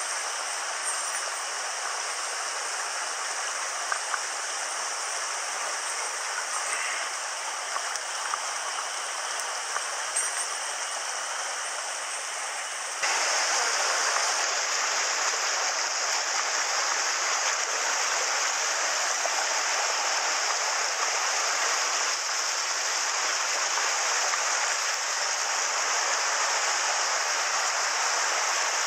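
Rocky mountain headwater stream rushing over stones, a steady rush of water. About halfway through it turns suddenly louder and brighter as a close cascade of white water takes over.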